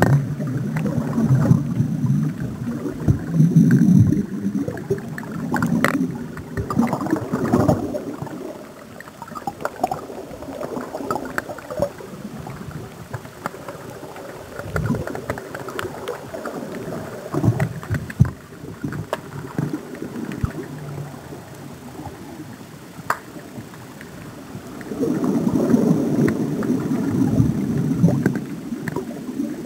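Underwater rumble and gurgle of water moving around a waterproof camera held on a landing-net pole, heavier in the first several seconds and again near the end, with scattered small knocks in between.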